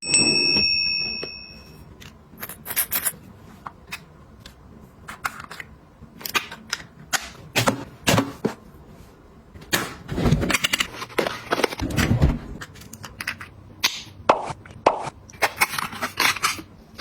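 Objects being handled and set down: a run of irregular clicks, taps and light knocks, with a couple of heavier thumps midway. A short high ringing tone sounds right at the start.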